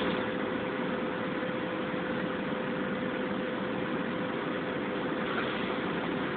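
Steady drone of cement-plant machinery: an even rushing noise with a constant mid-pitched hum running through it, and a short click right at the start.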